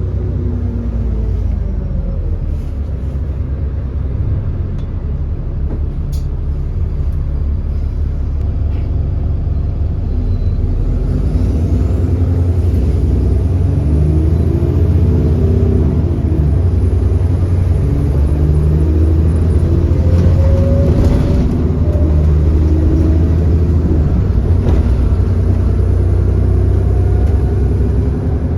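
Cummins ISB 6.7-litre diesel engine of an Alexander Dennis Enviro400 double-decker bus running under load, heard on board; the engine note rises and falls as it pulls away and the ZF Ecolife automatic changes gear, getting louder about a third of the way in. The engine has an exhaust leak.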